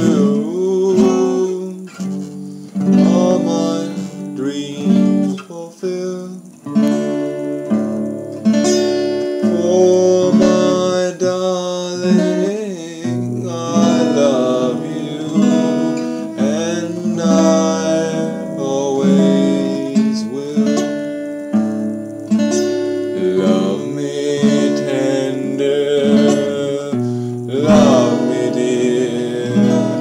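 Acoustic guitar strummed in changing chords, with a man singing along.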